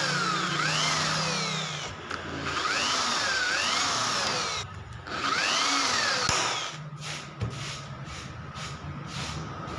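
Handheld electric drill boring through a metal edging strip into plywood in three runs of about two seconds each, its pitch rising and falling as the trigger is squeezed and eased. After about seven seconds the drill stops and only quieter handling sounds remain.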